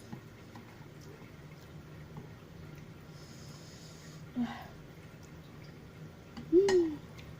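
A person breathing hard and sniffling from the burn of very spicy noodles, with a short voiced groan about four and a half seconds in and a louder pained gasp that rises and falls in pitch near the end.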